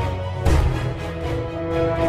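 Background music: held notes over a beat, with a heavy low hit about half a second in.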